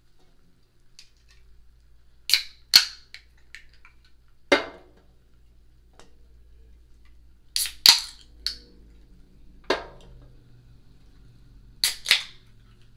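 Aluminium drink cans knocking and clinking as they are picked up and set back down on a table: a series of sharp knocks, several in quick pairs.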